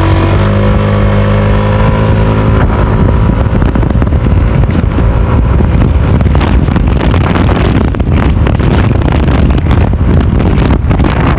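Yamaha NMAX scooter's single-cylinder four-stroke engine, with a freshly fitted iridium spark plug and ignition coil, running at a steady note for the first couple of seconds. The scooter then gets under way, and the engine is mixed with wind rushing over the microphone.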